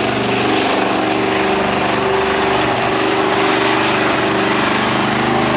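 Pickup truck engine held at high, steady revs as the truck churns through a deep mud bog, the engine note staying at one pitch throughout.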